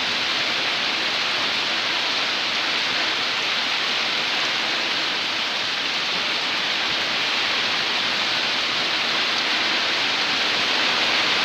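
Heavy rain in a rainstorm, pouring down in a steady, dense hiss with no let-up.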